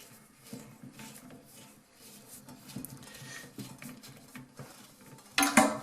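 Faint light taps and rustling of hands working the toilet's water supply line fitting, with a pot beneath, then a sudden loud metal clank of the pot near the end.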